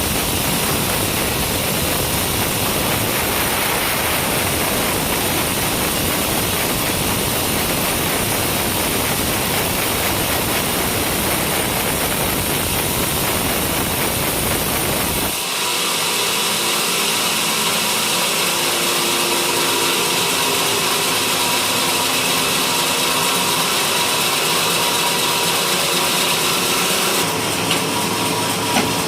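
A sawmill running steadily as it saws coconut-palm wood. About halfway through the sound changes abruptly: the low rumble drops away and a steady whine of several tones takes over.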